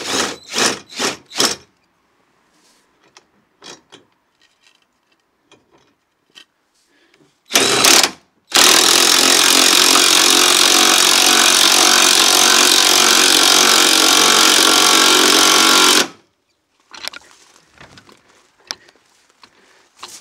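Cordless power driver with a socket winding a caravan corner steady: a few short bursts in the first second and a half, then a brief burst and, from about 8 s in, one steady run of about seven and a half seconds that stops abruptly. Faint clicks and rattles before and after.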